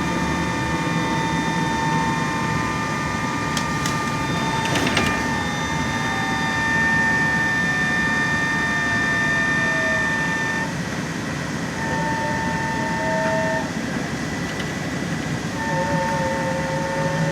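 Interior of a LAZ E-183D1 electric trolleybus on the move: the electric traction drive whines with steady high tones. The tones cut out about ten seconds in and come back twice, with a slow glide in pitch as the speed changes. A few brief clicks and rattles come about four to five seconds in.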